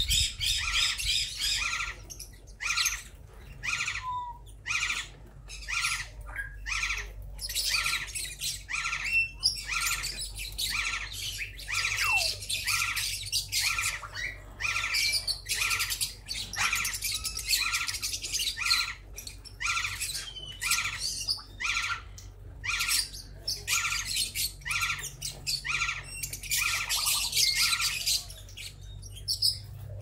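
A flock of small aviary parrots chattering and squawking nonstop, a rapid, overlapping run of short high-pitched calls with hardly a gap.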